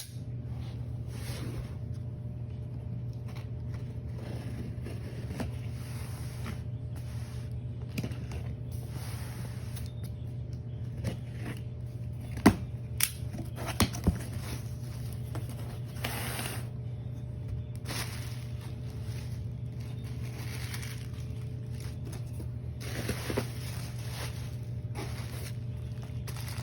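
A parcel being opened by hand: tape and cardboard scraping and tearing, packing material rustling, with a few sharp knocks around the middle, over a steady low hum.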